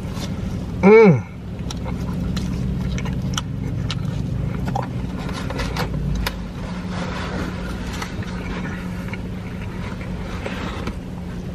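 Close-up chewing of a mouthful of deep-dish pizza, with wet smacking and clicking mouth sounds, after a loud hummed "mmm" that rises and falls in pitch about a second in. A steady low hum from the car runs underneath.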